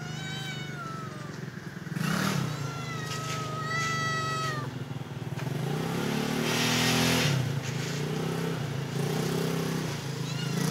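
Domestic cat meowing twice: a short meow that rises and falls at the start, then a longer, held meow about two seconds in. A motor hums steadily underneath, and a short rustling hiss comes about two-thirds of the way through.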